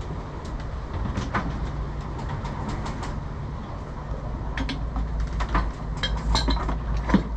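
Metal clinks and taps from hand tools and a steel pulley being worked onto an alternator's shaft, more frequent toward the end with a sharper knock near the end, over a steady low machinery rumble.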